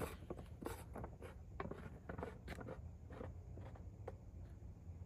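Faint, irregular clicks and rustling as a PVC potato launcher is handled and raised to aim.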